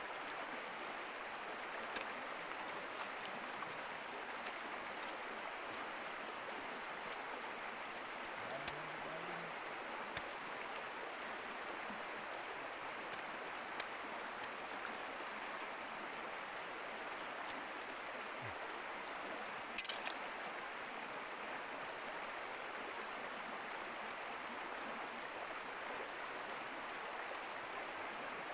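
Steady rushing of a flowing stream, with a steady high-pitched drone above it and a few faint clicks, a sharper one about two-thirds of the way through.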